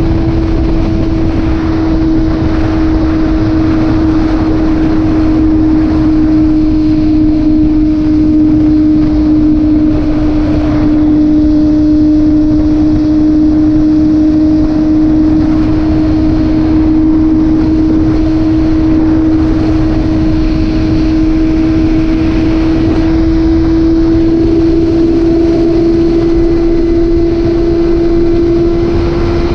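Motorcycle engine running at steady cruising revs, holding one even note, with wind rushing over the microphone.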